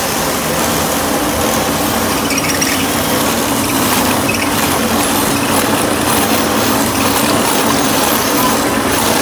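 Overhead electric rotary cutter cutting into a turned wooden spindle on a lathe: a steady motor hum under a constant cutting noise.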